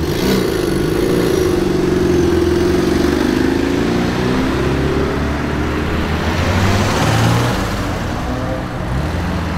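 Volkswagen Scirocco engine and exhaust as the car accelerates past and drives away. The engine note is strongest for the first five seconds and swells again about seven seconds in.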